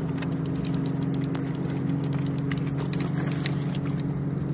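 A motor running steadily with a low, rapidly pulsing hum, over a steady high insect trill, with a few small clicks and knocks.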